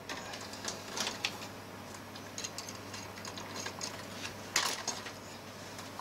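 Scattered light clicks and knocks of a motherboard and its cable connectors being handled inside a metal PC case, with a brief cluster of louder clicks about four and a half seconds in, over a faint steady low hum.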